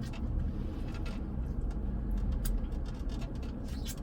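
Eating sounds close to the microphone: scattered short clicks and smacks of chewing food over a steady low background rumble.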